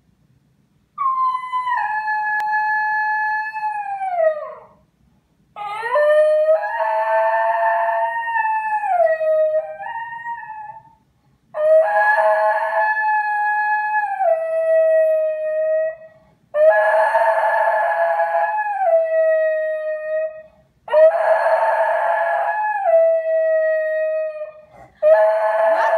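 Basenji howling: about six long howls, each held on a steady pitch and then dropping in steps, with short breaks between. This is separation howling, the dog missing its owner who has just left the house.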